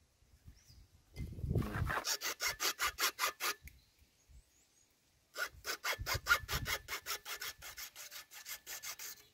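Hacksaw cutting through HDPE plastic pipe with quick, even back-and-forth strokes, about five a second. It saws in two runs, with a pause of about two seconds between them.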